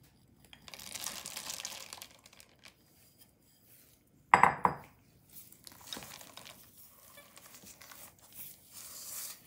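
Flour-coated chocolate chips poured from a glass bowl into a stainless steel mixing bowl, a hissy rattle lasting about a second. A single loud clink about four seconds in, then a spatula folding the chips into thick batter, with soft scraping against the steel bowl.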